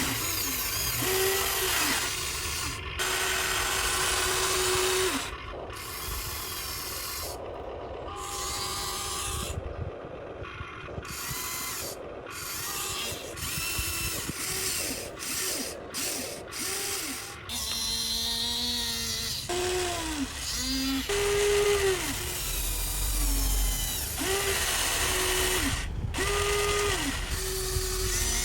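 Electric gear motors of a Huina RC excavator whirring in many short bursts, each tone sliding up in pitch as it starts and down as it stops as the controls are worked.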